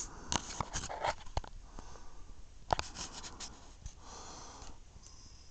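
Scattered faint clicks and scratchy rubbing from a hand-held camera being handled close to its microphone, bunched in the first second and a half and again around three seconds in.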